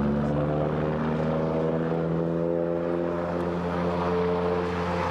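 Light propeller airplane engine running steadily, its pitch drifting slightly.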